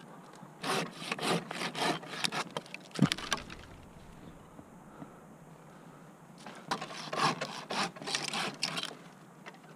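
Curved hand pruning saw cutting through a dead tree limb in quick back-and-forth strokes, in two runs of sawing with a pause between. A single sharp knock about three seconds in.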